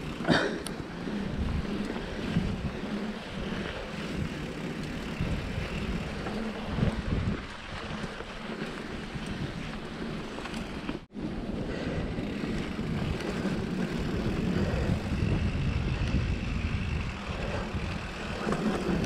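Wind rushing over the microphone with the rumble and rattle of riding along a dirt trail, cutting out suddenly for a moment about eleven seconds in.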